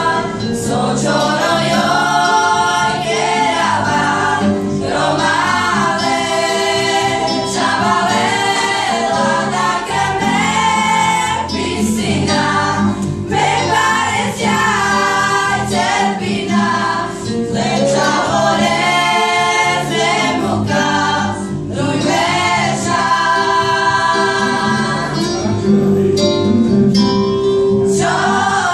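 A group of women and girls singing a Romani song together, phrase after phrase, with steady held notes beneath the melody.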